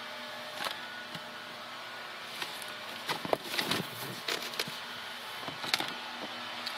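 Light knocks and rustles of handling among cardboard food boxes and a plastic strip curtain in a freezer truck's cargo box, over a steady hum. The knocks cluster in the middle.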